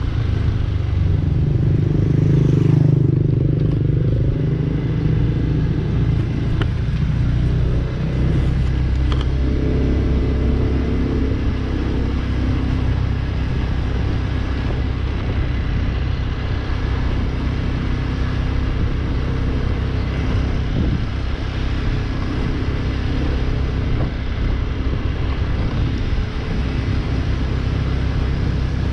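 Motorcycle engine running steadily while riding, heard from on the bike, with a low rumble throughout and a slightly louder stretch a few seconds in.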